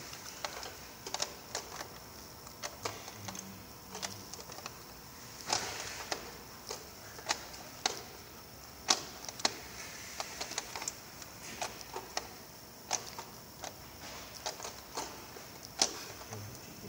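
Irregular sharp clicks and taps of hand work in stacked hard black plastic trays, small parts and fingertips knocking the plastic, about one or two a second with some quick clusters. A faint steady high-pitched whine runs underneath.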